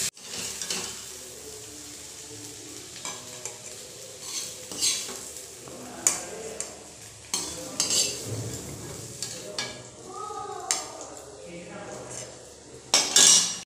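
Metal spatula scraping and clinking against a kadhai and a steel plate as fried taro (arbi) is stirred and scooped out, over a light sizzle of hot oil. A louder scrape comes near the end.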